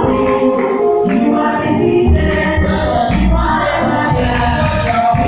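A choir singing gospel music.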